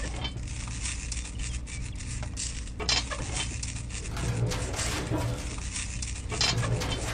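Small clicks and rustling of twine and mesh sandbags being handled as jute twine is tied onto a toy trailer's rail, over a steady low hum.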